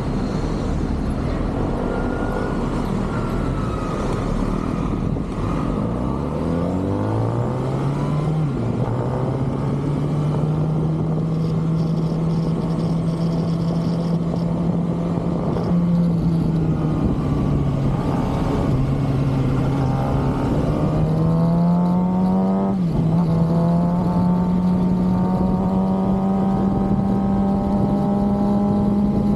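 Stock 2023 Kawasaki ZX-6R's 636 cc inline-four engine and exhaust under way. The pitch climbs as the bike accelerates about six seconds in, then settles into a steady cruise with a couple of brief dips and recoveries, over a low rush of wind noise.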